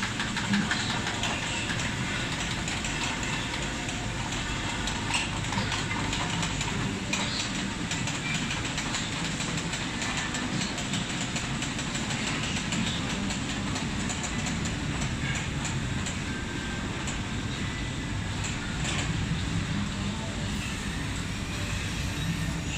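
Bulky-fabric spreading machine running as it lays fabric along the cutting table: a steady mechanical running noise with faint irregular clicks and rattling.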